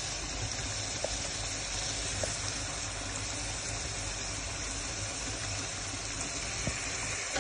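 Ridge-gourd and hilsa curry simmering steadily in a pan, a continuous bubbling sizzle, with a steady low hum underneath.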